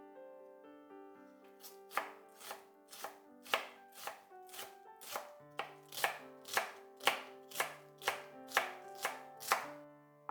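Knife chopping on a cutting board: steady, even strokes about two a second, starting about two seconds in.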